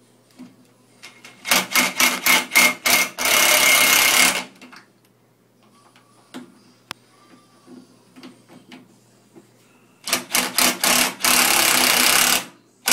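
Power drill with a Phillips bit driving screws: twice, a few short trigger pulses followed by about a second of steady running as each screw is run in.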